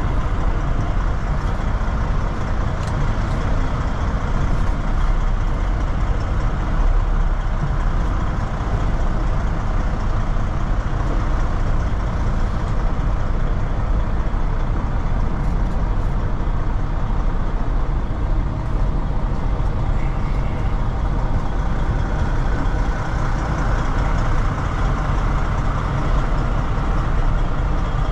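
Semi truck's diesel engine running steadily, a continuous low rumble with no sharp events.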